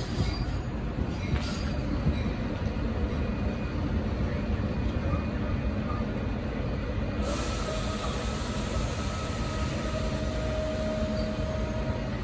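Metra commuter train with bilevel gallery cars, a steady low rumble, with a faint thin squeal starting about two-thirds of the way in that rises slightly near the end.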